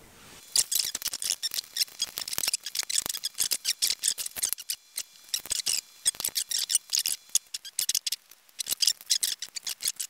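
Hands handling the parts of an original iMac keyboard during reassembly: a quick, irregular run of small plastic clicks, taps and rustles.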